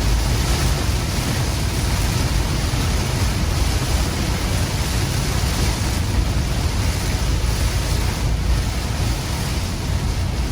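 Heavy rain pelting a moving car, a steady dense hiss over a constant low road-and-engine rumble.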